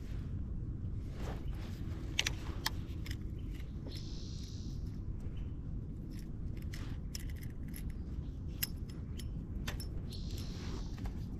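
Small clicks and taps of hands handling a fishing hook, soft-plastic worm and baitcasting reel, over a steady low rumble of breeze on the camera microphone. Two short hisses come about four seconds in and again near the end.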